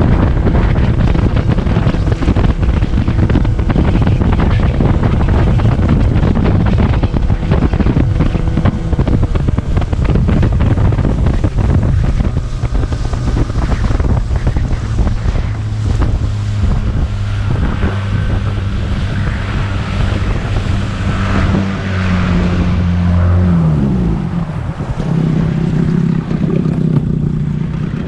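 Tiller-steered outboard motor driving a small fishing boat over waves, with wind buffeting the microphone and water rushing and slapping against the hull. About 23 seconds in, the engine note falls sharply, then runs on at a lower pitch.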